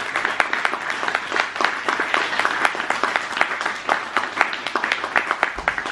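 Audience applauding: dense, steady clapping that holds at an even level.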